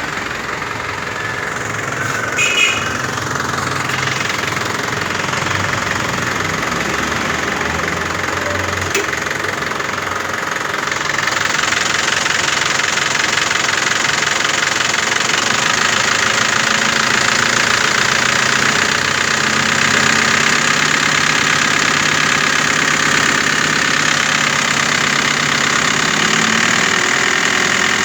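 A car engine running steadily at idle; the sound grows louder and brighter about eleven seconds in.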